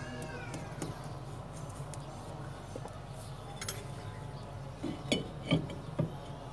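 A Suzuki minivan's rear brake drum being slid onto the hub over the brake shoes. The metal clinks and knocks a few times near the end as it seats.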